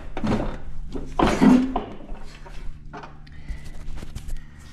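Clunks, knocks and scraping of a riding mower's steel deck being shifted forward off its mounts, followed by a string of light metal clicks in the second half.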